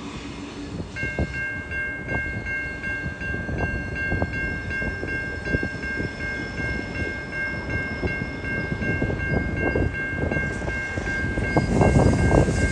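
A level crossing warning bell starts about a second in and keeps ringing steadily at about three strokes a second. Under it, a TasRail freight train hauled by TR-class diesel locomotives approaches with a low rumble that grows louder near the end.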